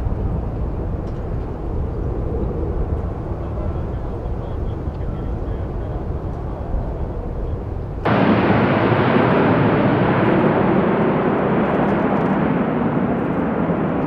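Boeing 777 jet engines rumbling low as the airliner climbs away after takeoff. About eight seconds in, the sound cuts suddenly to the louder, fuller jet noise of another Boeing 777 passing low on final approach.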